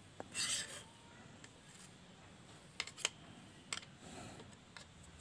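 Faint, sharp clicks of a spoon knocking against metal paint tins as thick paint is poured from one tin into another, with a brief soft hiss about half a second in.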